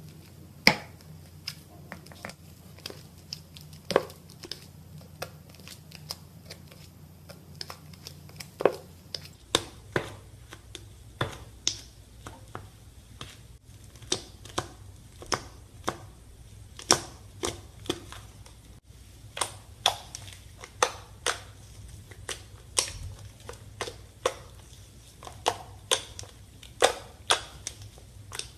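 Slime being squeezed and poked, giving a string of sharp, irregular popping clicks, roughly one or two a second, over a faint low hum.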